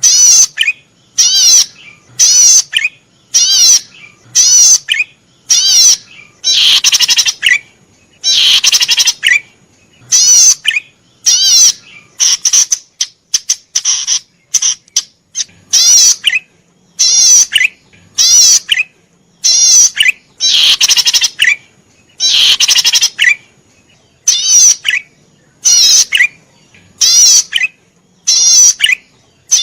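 A cici padi merah (cisticola) calling vigorously in a long run of short, rapidly warbling phrases, about one a second with brief pauses between them and a few longer phrases mixed in.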